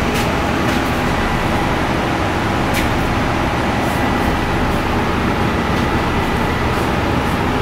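Steady background rumble and hiss with a faint constant hum.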